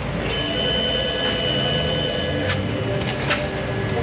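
A sudden bright metallic ring, like a steel tool or part struck or dropped, fading out over about two seconds, followed by a couple of sharp clicks.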